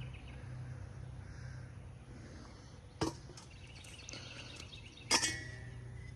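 Two short sharp snaps about two seconds apart over a steady low hum. The second snap is louder and is followed by a brief ringing tone.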